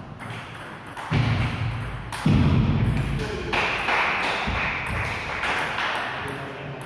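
Table tennis rally: a celluloid ball clicks off bats and the table in quick irregular strokes. There are louder low thuds about a second in and again about two seconds in, then a few seconds of broad noise mixed in.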